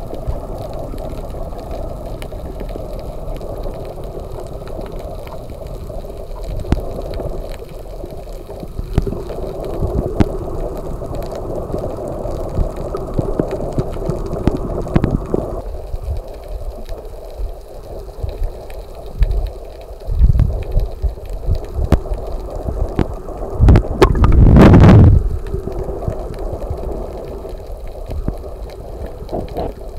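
Underwater sound from a snorkeler's camera: a steady watery hum with gurgling, a few low thumps, and one loud rush of water lasting about a second, roughly three-quarters of the way through.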